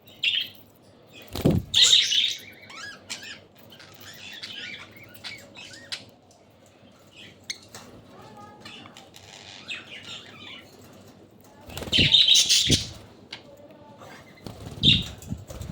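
A flock of budgerigars chirping, with three loud bursts of flapping wings: one early, one past the middle and one near the end.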